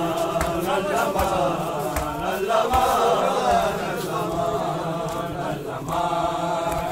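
A group of men chanting a noha, a Shia mourning lament, in unison, with hand-on-chest beating (matam) striking roughly once a second.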